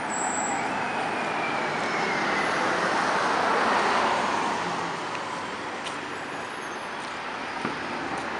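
Street traffic: a city bus driving past, its engine and tyre noise swelling to a peak about four seconds in, then fading. A faint sharp crack near the end.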